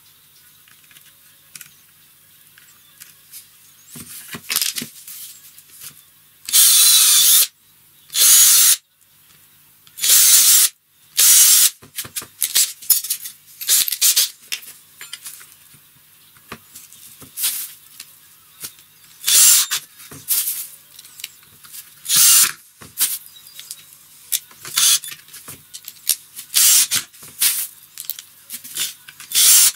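Cordless drill boring pilot holes into a wooden frame corner in four bursts of about a second each. It is then used to drive screws through a steel corner bracket in many short, sharp bursts, with light handling clicks between them.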